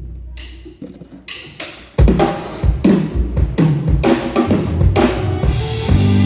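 Drum kit played in a band sound check: light cymbal hits at first, then about two seconds in the full kit comes in loud with kick drum and snare in a steady beat. Near the end, sustained bass and guitar notes join in.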